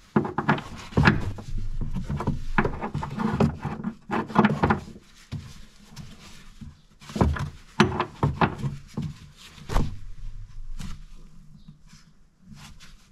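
Irregular clicks and metallic knocks of a hand tool tightening the mounting bolt of a new rear shock absorber. They come in bursts of strokes, with a lull in the middle and a fading tail near the end.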